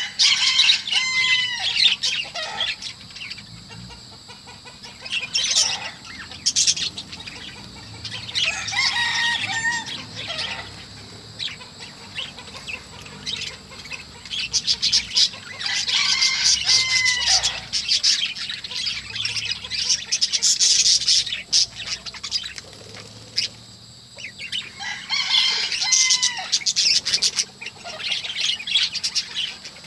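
Budgerigars chirping and warbling in several bursts of chatter, separated by quieter pauses.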